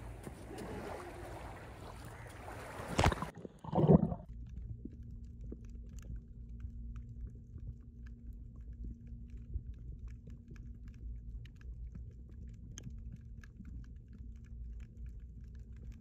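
Small waves washing on a sandy beach, then a sharp knock and a loud burst as the recording goes under the water. After that comes the muffled sound of a camera underwater at a coral reef: a low rumble with faint scattered ticks and a steady low hum.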